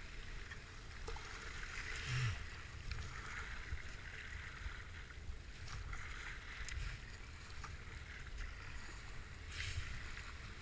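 Whitewater rushing and churning around a kayak running a river rapid, with paddle strokes splashing into the water. Louder splashes stand out about two seconds in and again near the end.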